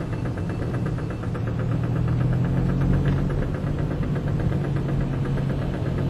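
Fiat Brava's 1.6 16-valve four-cylinder engine running steadily while driving, heard from inside the cabin as a low drone, with a fast, even ticking over it.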